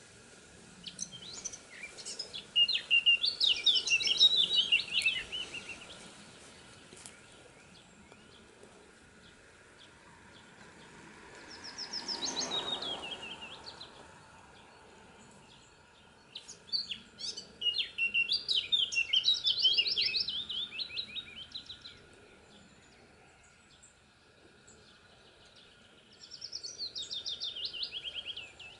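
A small songbird singing in long phrases of rapid, high notes that run downward, three times. Near the middle there is a brief rushing sound with a few falling notes.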